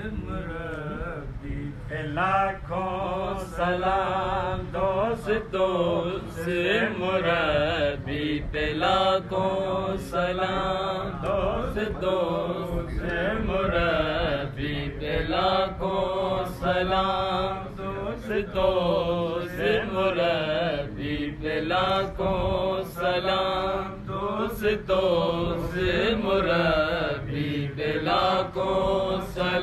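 Unaccompanied male chanting of a qasida, a devotional Urdu poem, in long melodic phrases that rise and fall, with brief breaths between phrases.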